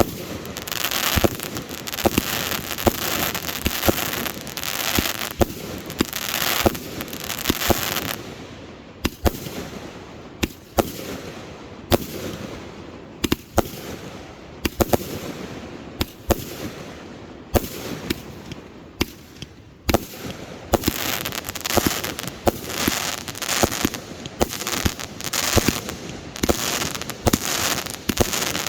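Fireworks display: a steady run of many sharp bangs from bursting shells, one after another, over continuous crackling.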